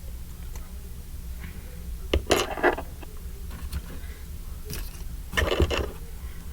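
Hard plastic model-kit parts clattering and clicking against each other as they are handled, in two short rattling bursts: one about two seconds in and one a little past five seconds.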